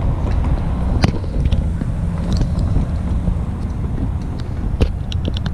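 Road traffic driving over a railroad grade crossing: a steady low rumble with a few sharp clicks, and a quick run of high ticks near the end.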